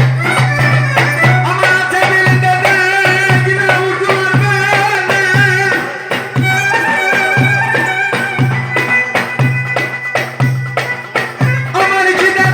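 Instrumental Turkish Barak folk music: a twisting, ornamented melody over a low pulsing beat of about two per second, with percussion.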